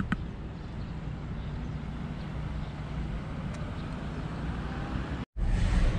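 Steady outdoor city ambience with a low hum of road traffic and a click at the start. It cuts off sharply about five seconds in, and louder road and engine rumble from inside a moving camper van takes over.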